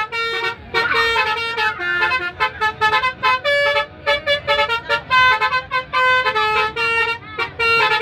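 Multi-tone 'telolet' bus horn playing a quick run of short, stepping notes like a little tune, with a brief pause about four seconds in.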